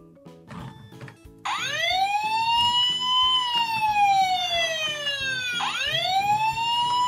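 Toy Fireman Sam Jupiter fire engine sounding its electronic siren: a wailing tone that rises slowly, then falls, starting about a second and a half in and starting over near the end. Background music with a steady beat runs underneath.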